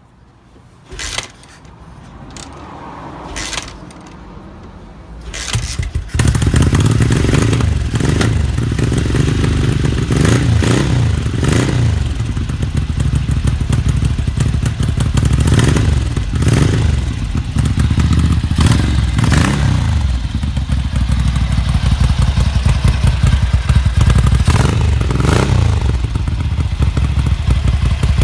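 Ducati 900 MHR's bevel-drive 90-degree V-twin being kick-started, catching about six seconds in and running loud through round Conti mufflers, with repeated blips of the throttle. It runs unsteadily at first, which the owner puts down to the front fuel tap not being set to reserve.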